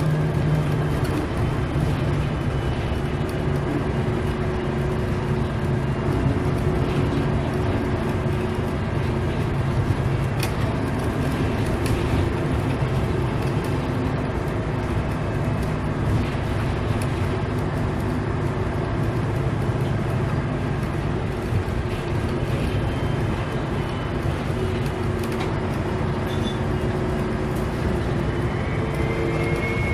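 City bus diesel engine running under way, a steady drone with a turbocharger whistle that is faint in the middle and rises in pitch again near the end.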